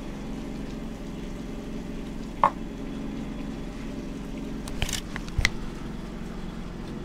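Steady low mechanical hum, like a small engine or motor running, with a sharp click about two and a half seconds in and a few short knocks and clicks around five seconds in.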